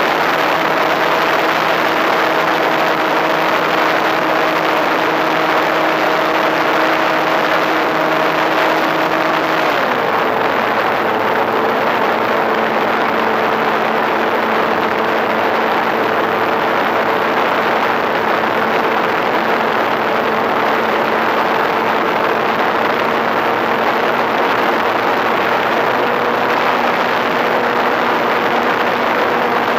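RC model plane's electric motor and propeller humming steadily in flight over a loud rush of wind noise. About ten seconds in the pitch steps down as the throttle is eased back, and near the end it rises slightly.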